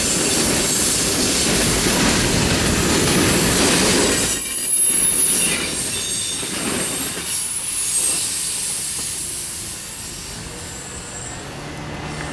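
Freight train cars rolling past close by: a heavy rumble and clatter of wheels on rail, with high-pitched wheel squeal. The last cars go by in the second half, and the sound dies down as the train moves off.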